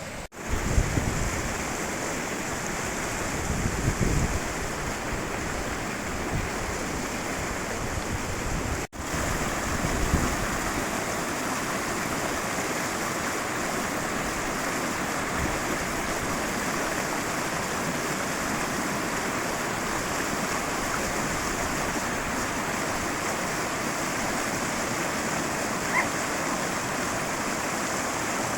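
Mountain river water rushing steadily. The sound cuts out for a split second just after the start and again about nine seconds in. Low rumbles of wind on the microphone come and go in roughly the first ten seconds.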